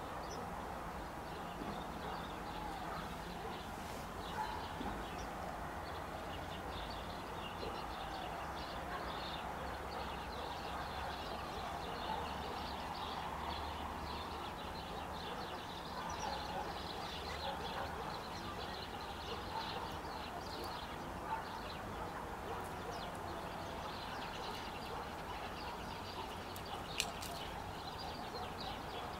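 Birds chirping and twittering in short, high calls over a steady background hiss, with a few sharp clicks, the loudest near the end.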